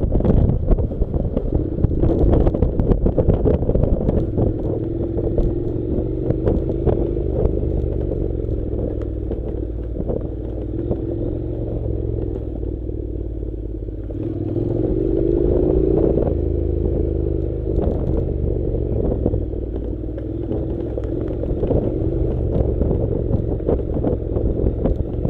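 Honda NC700's parallel-twin engine running under way on a rough dirt track, its pitch rising about 14 to 16 seconds in as it accelerates. Frequent clattering knocks from the bike and stones over the rough ground.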